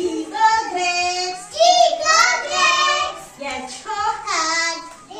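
A young child singing phonics in a high voice, chanting letter sounds and example words in short sung phrases.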